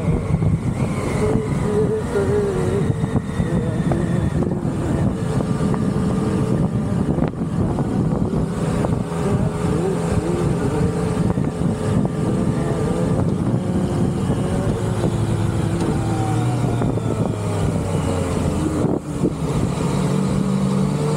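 The engine of a vehicle being ridden, running steadily on the move, its pitch drifting up and down as the speed changes, over a dense rush of road noise.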